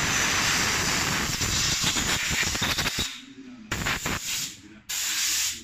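Compressed-air blow gun blasting air onto a motorcycle engine's exposed flywheel side: one long hiss of about three seconds, then two short blasts.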